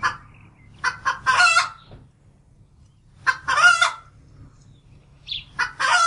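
Domestic hen cackling: a couple of short clucks run into a longer drawn-out call, three times over.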